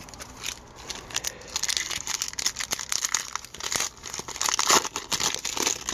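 Wrapper of an Upper Deck hockey card pack crinkling and tearing as it is pulled open by hand, a dense crackly rustle that builds after the first second or so.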